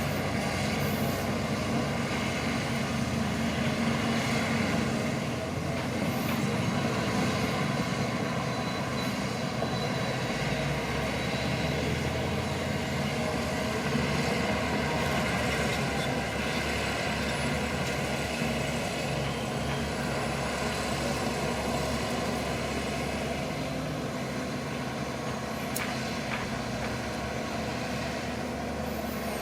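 Shantui crawler bulldozer's diesel engine running steadily, with a few faint knocks.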